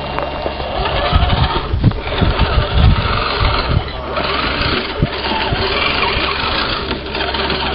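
Small electric motor and gearbox of a radio-controlled scale crawler truck running as the truck crawls over rocks and gravel, a steady whirring haze, with irregular low buffeting on the microphone.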